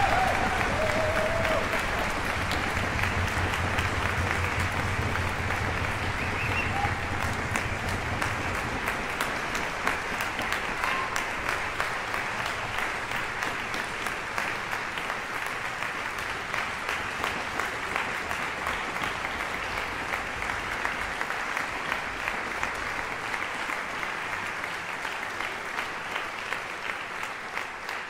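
Concert-hall audience applauding, a dense steady clapping that slowly dies down.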